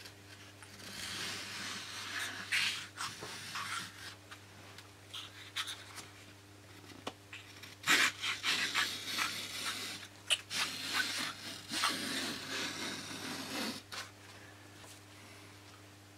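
Small balsa plane shaving down the balsa trailing edge of a model glider wing: dry scraping strokes in two runs, one from about a second in for a few seconds, and a longer one from about eight seconds in. The trailing edge is a little hard and does not plane nicely.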